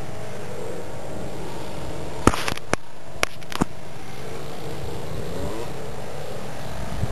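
Steady wind rushing over the camcorder's microphone, with four sharp clicks from handling of the camera between about two and three and a half seconds in.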